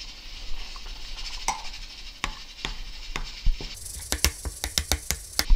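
Metal spoon stirring a thick gochujang-and-chili-flake seasoning in a ceramic bowl, clinking against the bowl. The clinks are scattered at first, then come quickly, several a second, from about four seconds in.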